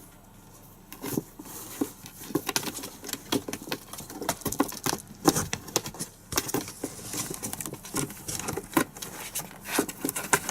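Kittens' paws pattering and thumping in quick, irregular bursts, starting about a second in.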